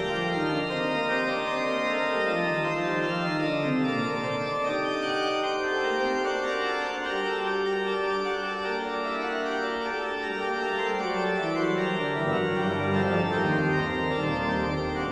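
Background music of slow, long-held chords, the low notes shifting to a new pitch every few seconds.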